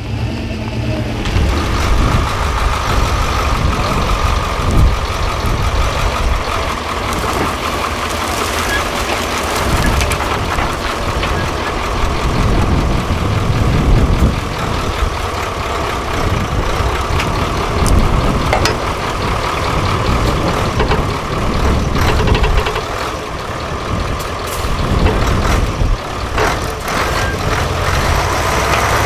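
Engines of heavy off-road trial trucks running under load as they crawl up and across steep slopes, a deep rumble that swells and eases. A steady high whine runs through most of it and stops about three-quarters of the way through.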